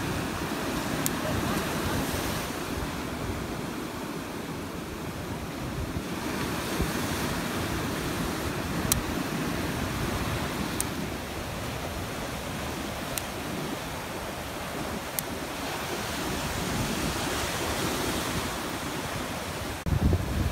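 Ocean surf washing up a sand beach, a steady rush of breaking waves, with wind buffeting the microphone. The wind on the microphone grows heavier near the end.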